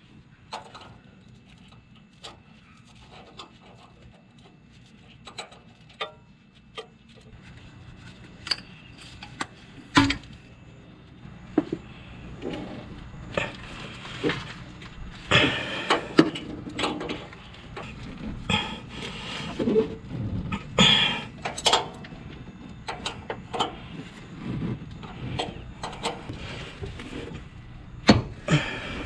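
An adjustable wrench clinking and scraping on metal as it is worked against a rusted oxygen sensor in an exhaust manifold, with irregular knocks and scrapes that grow busier about halfway through.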